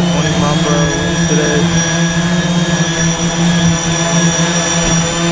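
Y6 coaxial multirotor's six brushless motors and propellers holding a low hover: a steady droning hum with a high whine above it.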